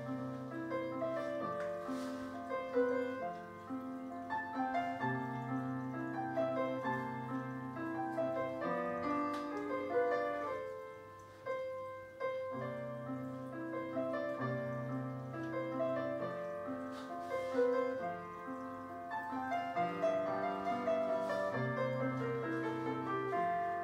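Solo piano playing classical ballet class accompaniment, with a steady bass line under a melody; it eases off briefly about halfway through.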